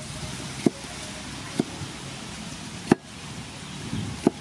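A cleaver cutting green tomato into wedges on a wooden chopping board: four sharp knocks of the blade striking the board, about a second apart.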